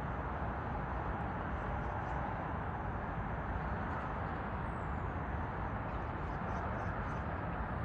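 Steady hum of distant city traffic across a high-rise apartment district, with a few faint high chirps in the second half.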